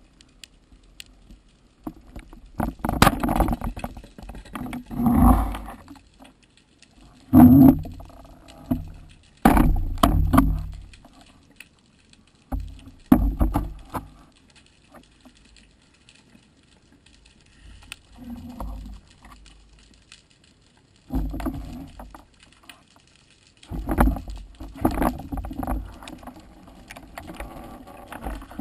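Irregular bursts of rushing water and knocks picked up underwater, some starting suddenly, with quiet gaps between them, as a spearfisher works a speargun and a speared gilthead sea bream among the rocks.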